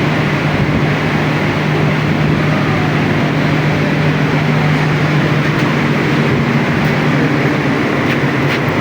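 Scroll compressor of a water-cooled package air-conditioning unit running steadily, a loud, even mechanical noise with a constant low hum.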